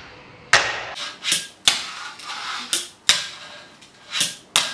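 A fingerboard performing tricks on a hard stone tabletop: about seven sharp clacks as the small deck pops and lands, with a faint rolling of its tiny wheels between some of them.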